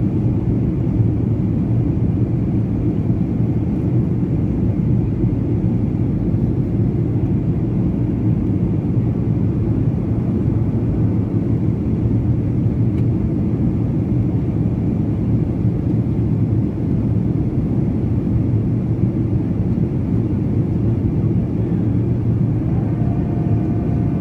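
Boeing 737-800 airliner on approach, its CFM56 turbofan engines and airflow making a steady low rumble. A faint steady higher tone joins near the end.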